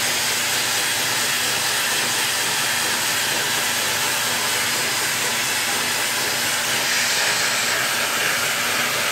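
Canister vacuum cleaner running steadily, its suction drawing air through a homemade wooden air engine to drive it.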